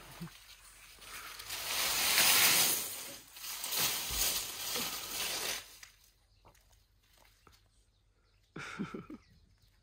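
Leafy cut branches rustling and crackling as a baby elephant pulls and lifts them with her trunk, in two swells over the first five seconds or so. Then near quiet with a few light clicks, and a brief murmur near the end.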